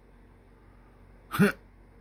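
One short, sharp throat sound from a person, like a hiccup, about a second and a half in, with a brief upward jump in pitch, over a faint steady hum.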